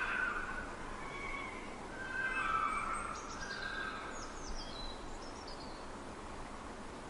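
Fox calling: a few short, whining calls in the first half, with a run of high, falling bird chirps over steady outdoor background noise.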